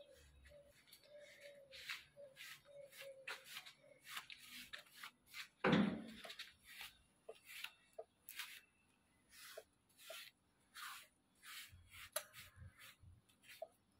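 Small paintbrush scrubbing paint onto rough, textured decorative concrete: short, faint scratchy strokes repeating irregularly, about one or two a second. A single louder thump comes about six seconds in.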